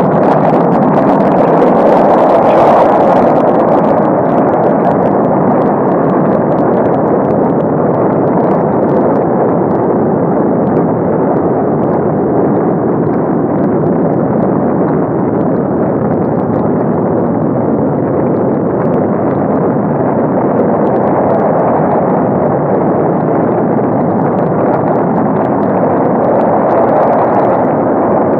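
Saturn V rocket engines at ignition and liftoff: a continuous, dense roar of rocket exhaust. It is loudest in the first few seconds, then holds steady without a break.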